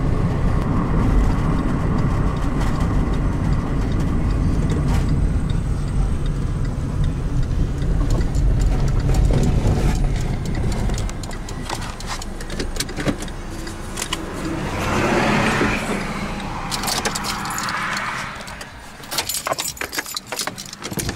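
Car driving along a rough country road, heard from inside the cabin as a steady low rumble of engine and tyres. About halfway through the rumble fades as the car slows. Near the end come a series of clicks and rattles of handling.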